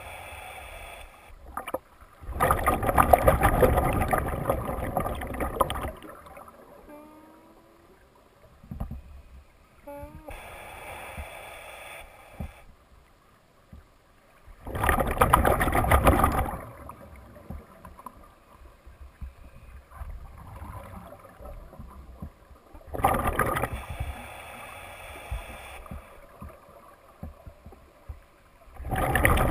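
Scuba regulator breathing underwater: four long rushes of exhaled bubbles, several seconds apart, with quieter hissing inhalations between them.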